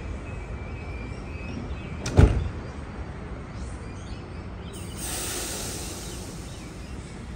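The doors of a Sydney Trains OSCAR double-deck electric train close with a single loud thud about two seconds in, shutting before departure. A few seconds later there is a burst of hissing air from the train.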